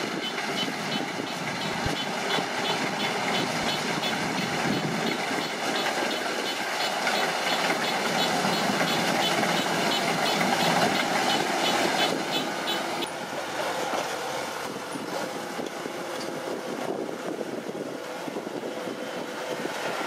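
Kubota DC-105X rice combine harvester running: steady diesel engine and machinery noise with a fast, regular metallic clatter that stops about two-thirds of the way through.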